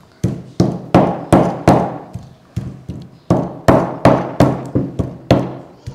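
Wooden pestle pounding in a wooden mortar bowl: a steady run of knocks, about three a second, mashing cooked potato, tomato and anishi. The pounding stops near the end.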